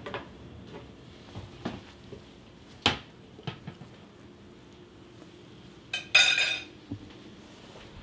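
A metal spoon clinking and knocking against dishes: a few light clicks and knocks, then a louder clatter about six seconds in.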